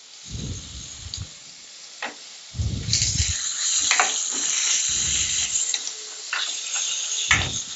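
Sliced onions sizzling in hot ghee in a non-stick kadai as they are sautéed and stirred with a spatula. The sizzle grows louder about three seconds in, with a few low thumps and clicks from the stirring.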